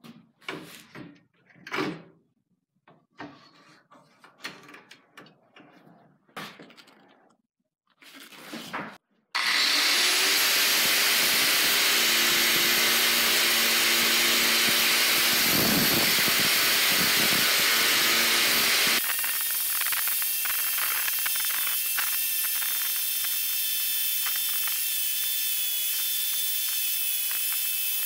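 A few separate knocks and clatters as a rusty hatchet head is set and clamped in a wooden workbench, then an angle grinder starts abruptly and runs steadily, its abrasive disc grinding rust off the steel head. About two-thirds in the pitch and level shift slightly and a fine scratchy grinding continues.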